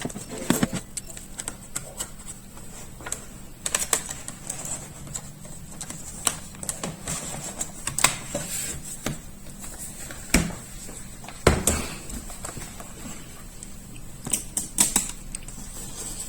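Irregular small clicks and taps of hands handling an opened laptop and its small plastic parts, some single and some in quick clusters, over a faint steady hum.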